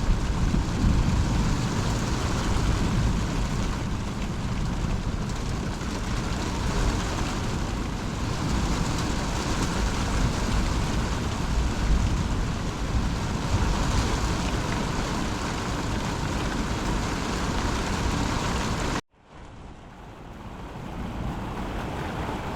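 Heavy thunderstorm rain and wind, a loud steady wash of noise over a strong, uneven low rumble. It cuts off suddenly about 19 seconds in, then comes back fainter and grows.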